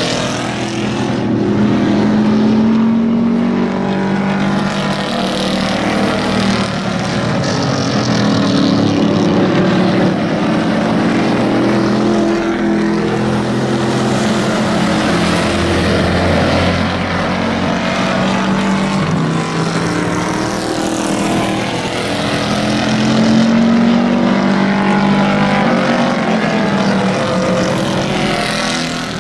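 Engines of several hobby-class pickup race trucks running hard in a pack, their pitch rising and falling as they rev and pass by.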